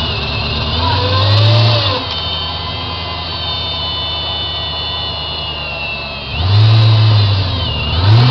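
Off-road competition buggy's engine revving in two bursts, about a second in and again from about six seconds, running lower between them with a steady high whine.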